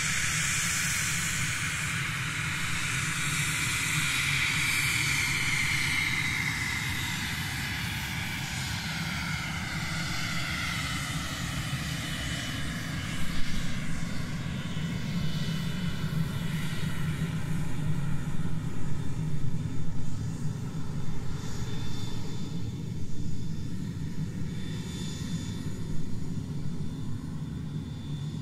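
Airliner engines on a landing approach: a whine that falls in pitch over the first several seconds above a steady low rumble, then rougher, gusty engine noise rising and falling from about halfway through.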